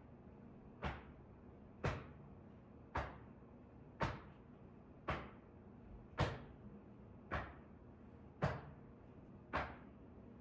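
Rhythmic hand slaps on the body as the swinging hands tap across the low back over the kidneys and across the lower belly, about one slap a second, steady and even.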